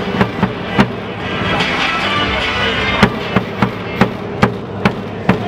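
Stadium cheer music played loud, with sharp percussive hits that settle into a steady beat of about two to three a second from about three seconds in.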